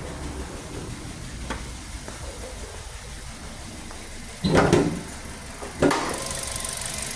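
Kia Picanto engine idling with a cylinder 3 misfire, running rough with the engine shaking. A loud clunk comes about four and a half seconds in, and a sharper knock a little over a second later.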